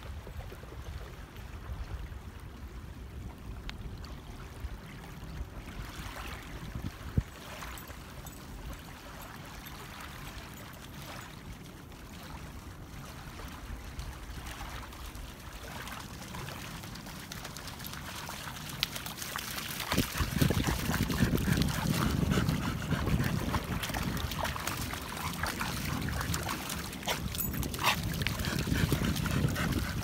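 Shallow water splashing as a large dog runs through the shallows. The splashing grows louder and busier about two-thirds of the way in as the dog comes up close, over a steady low rumble and small waves lapping.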